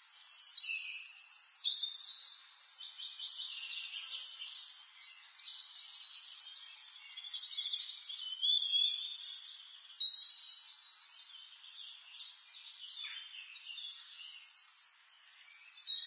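Several songbirds singing at once: a busy chorus of overlapping high chirps, trills and short whistled glides, with louder phrases about two seconds in and again near the ten-second mark.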